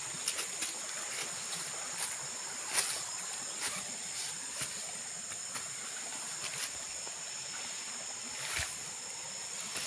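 Tropical forest ambience: a steady high-pitched drone of insects, with scattered snaps and crackles, the loudest about three seconds in.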